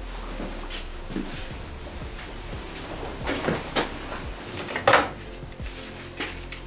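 A few irregular knocks and clunks, the loudest about three to five seconds in, over faint background music.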